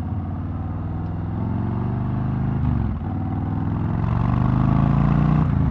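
Harley-Davidson Heritage Softail's Milwaukee-Eight 114 V-twin running through a fishtail exhaust while under way. The sound dips briefly about three seconds in, then the revs rise and it grows louder.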